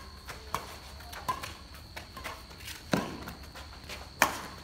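Badminton rally: a shuttlecock struck by rackets in sharp cracks, the two loudest about three and four seconds in, with lighter taps and players' footsteps on concrete between them.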